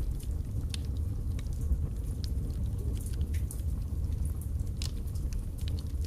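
Wood fire burning in a fireplace: irregular sharp crackles and snaps from the burning logs over a steady low rumble of the flames.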